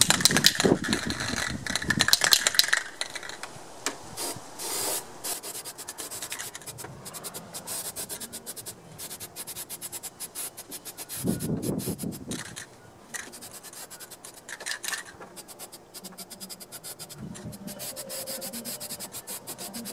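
Aerosol spray paint can being shaken, its mixing ball rattling in rapid clicks, loudest in the first few seconds.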